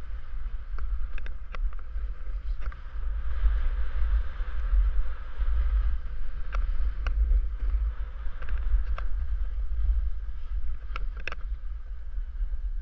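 Steady wind buffeting the microphone over the hiss of a snowboard sliding through soft snow, with a few sharp clicks scattered through it.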